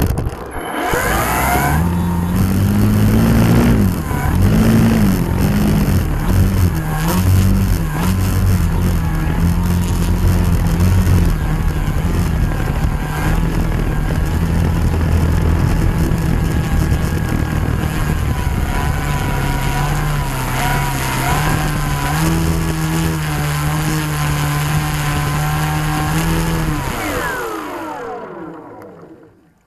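Electric motor and propeller of a Beast 60E radio-controlled aerobatic plane, heard from its own onboard camera, running at varying throttle as it moves on the grass. Near the end it winds down with a falling pitch and stops.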